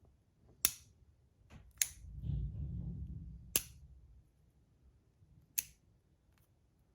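Four sharp clicks as the parts of a 3D-printed magnetic fidget slider snap together, spread a second or two apart, with a low rustle of handling between the second and third.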